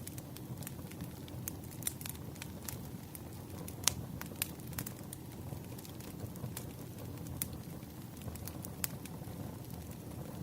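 Wood fire crackling: a steady low rumble of burning logs with irregular pops and snaps, the loudest snap about four seconds in.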